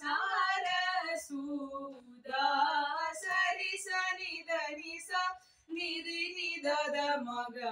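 A boy and a girl singing a Carnatic varnam in raga Todi together, with a short pause for breath about five and a half seconds in.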